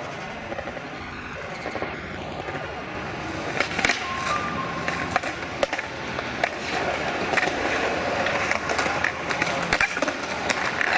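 Skateboards on a concrete skatepark: wheels rolling with a steady rumble, and sharp clacks of boards striking the ground. The clacks come often from about four seconds in.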